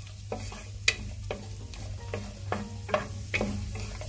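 Cashews and raisins frying in ghee in a non-stick pan, with a spoon stirring them and making about seven irregular clicks and scrapes against the pan, over a steady low hum.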